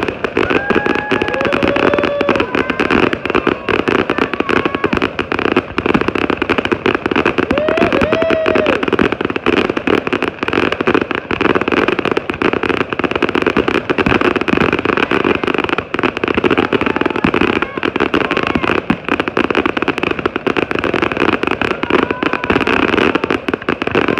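Fireworks display: a dense, continuous barrage of bangs and crackling, loud throughout.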